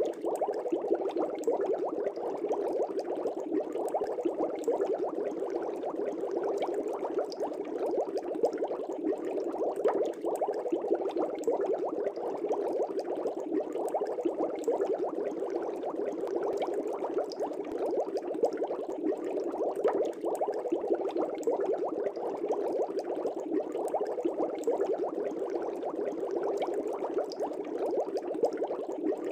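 Water bubbling steadily in a fish tank: a dense, continuous burble of many small bubbles rising and breaking.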